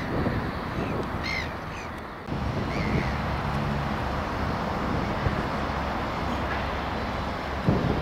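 A few short bird calls, the clearest about a second in and another near three seconds, over steady low outdoor background noise.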